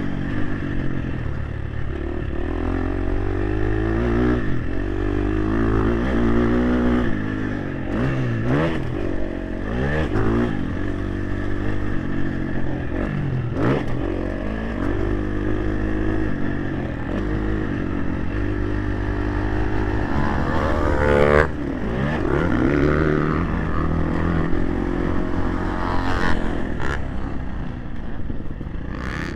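Motocross dirt bike engine revving up and down through the gears as it is ridden around the track, heard close up from a helmet chin-mounted microphone, with the pitch climbing to a high rev about two-thirds of the way in and a few short knocks along the way.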